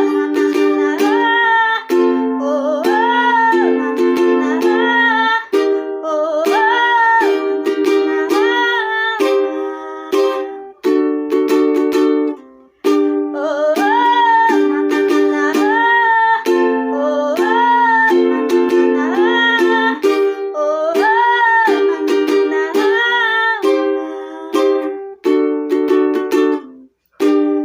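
Ukulele strumming and picking chords in an instrumental break of a pop song, with a higher melody line that slides between notes above it. The same phrase is played twice, with a short break in the middle.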